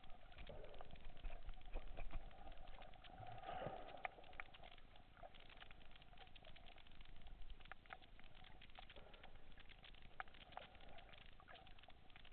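Faint underwater ambience: a steady crackle of scattered sharp clicks over a low hiss, swelling briefly about two to four seconds in.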